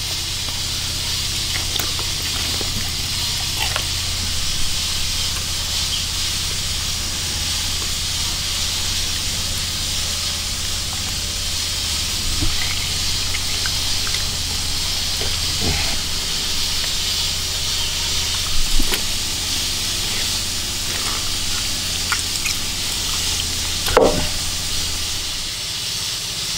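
Steady hiss of a gas burner flame over a low hum, with a few light knocks and handling sounds as beef tripe is torn apart and laid on a wooden chopping board; the sharpest knock comes near the end.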